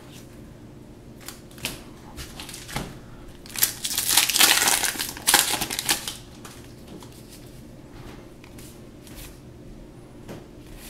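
Booster-pack wrapper crinkling and tearing as a Magic: The Gathering pack is ripped open, loudest for a couple of seconds around the middle. Light clicks of cards being handled before and after.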